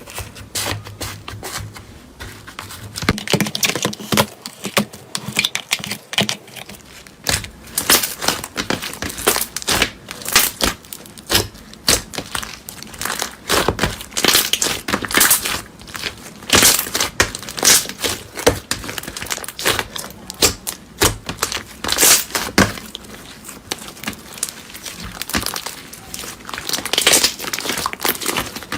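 Irregular crinkling and crunching, many sharp crackles in quick succession, as a crunchy material is pressed and crushed by hand.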